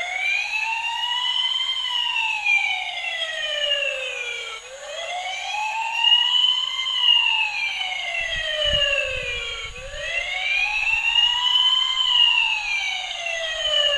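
Battery-operated toy fire truck's electronic wail siren through its small built-in speaker, slowly rising and falling in pitch, about one cycle every five seconds. Faint low knocks from the toy being handled come in during the second half.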